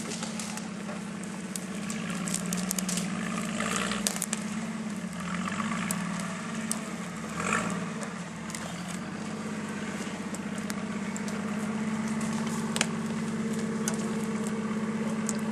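A Jeep's engine running steadily at low revs as it crawls off-road, with twigs and branches cracking and snapping several times over it.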